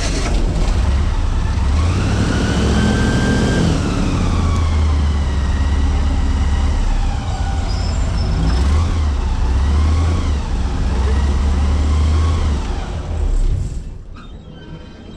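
Airboat engine and propeller running under way, the pitch rising and falling as the throttle is worked, then dropping back near the end as the boat is throttled down.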